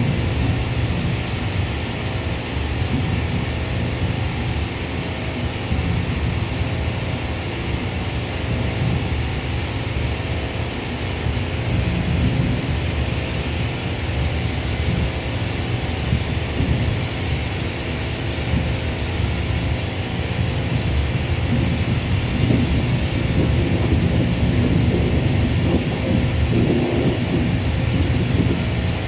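Steady low rumble of wind buffeting the microphone, mixed with the distant drone of jet airliner engines, a little louder over the last several seconds.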